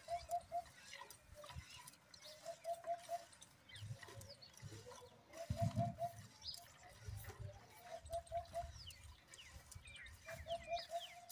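Cow being milked by hand into a steel bucket: short squirts of milk and handling noises, with birds calling around. One bird repeats quick runs of three or four low notes several times, and small chirps come in between. A low rumble is heard about halfway through.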